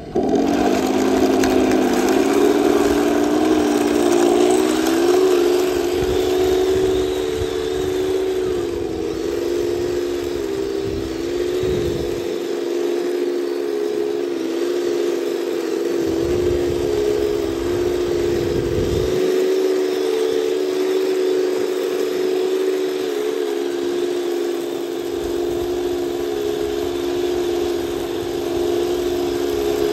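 Heng Long 1/16 RC Panzer IV tank driving through sand: a steady mechanical hum from its drive and sound unit rises in pitch over the first two seconds, then holds with small wobbles. A low rumble underneath drops out twice.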